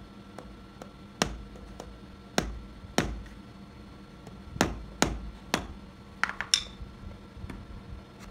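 Small mallet tapping the end of a brushless DC fan motor's shaft, six sharp knocks spread over about four seconds, to drive the shaft out so the bearings can be replaced. A quick run of lighter clicks follows.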